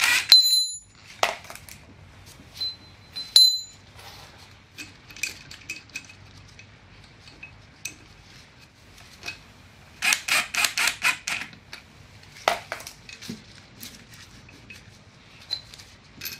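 Steel parts of a brake lathe's support link being handled by hand: scattered clicks and clinks, two of them ringing briefly, and a quick run of clicks about ten seconds in.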